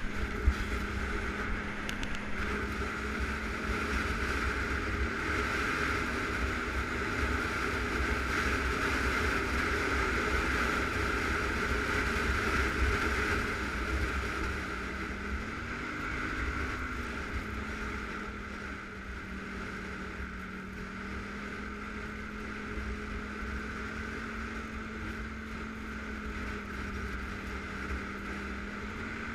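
ATV engine running steadily under way on the trail, with a constant rush of wind and road noise. About halfway through, its note rises briefly and falls back, and it runs a little quieter in the second half.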